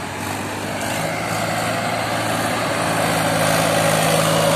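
Mahindra 265 DI tractor's three-cylinder diesel engine running steadily under load as it pulls a heavily loaded trolley of rice, growing louder as it comes close.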